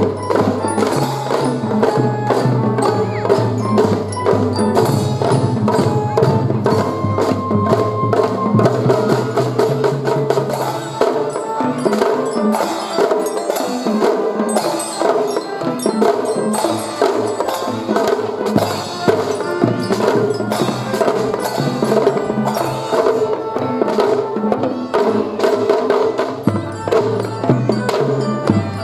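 Children's drum-and-fife band playing a march: rapid drum strokes and percussion under a bell-like melody.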